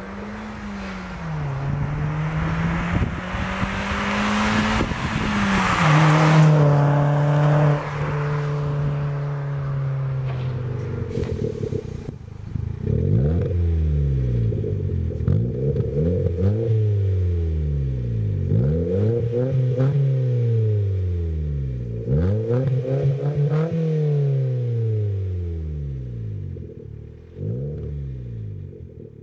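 Ford Fiesta Mk7 petrol four-cylinder through a stainless Cobra Sport cat-back exhaust. The car first drives past, its engine note climbing and dropping with tyre noise. From about twelve seconds in, it is revved in about eight quick throttle blips, the revs rising and falling each time.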